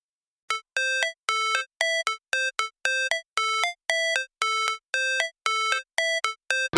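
Background music: after a brief silence, a synthesizer plays a run of short, evenly spaced beeping notes, about two a second. The full track comes in right at the end.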